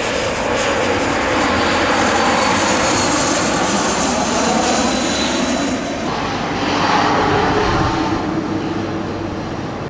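Twin turbofan engines of a Cessna Citation Latitude business jet: a steady jet roar with a faint high whine. About six seconds in the sound changes abruptly, then swells and eases off again toward the end.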